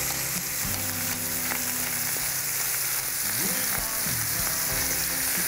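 Pork chops sizzling in a smoking-hot grill pan: a steady frying hiss while they brown.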